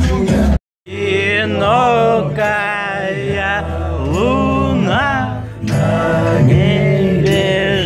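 Background music: a song with a sung melody over a steady bass line. It drops out completely for a moment a little under a second in, then carries on.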